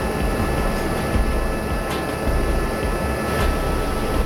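Helicopter cabin noise in cruising flight: the steady drone of the engine and rotor with a low, pulsing throb and a few faint steady whines above it.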